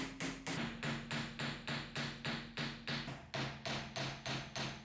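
A small hammer tapping fast and evenly, a little over three blows a second, peening the metal rivet pins through a dagger's walnut handle on an anvil.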